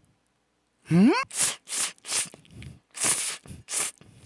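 Cold spicy bibim-myeon noodles being slurped up in a rapid run of short, noisy sucks, starting about a second in with a brief rising squeak.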